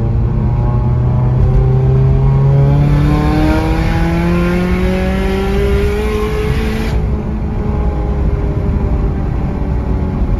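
Turbocharged 2.4-litre flat-four of a Toyota GR86 / Subaru BRZ accelerating in gear, heard from inside the cabin: the engine note rises steadily as it comes into light boost, with a hiss over it. About seven seconds in the throttle closes, the hiss cuts off suddenly, and the engine drops back to a lower, steady note.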